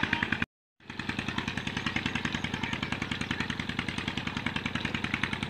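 A tubewell pump engine running steadily with a fast, even pulse. The sound drops out for a moment about half a second in.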